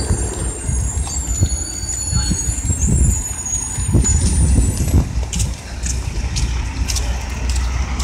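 Street traffic with large buses and cars running close by, a steady low rumble. A thin, wavering high-pitched squeal sounds over the first four seconds, and light clicks come scattered through the second half.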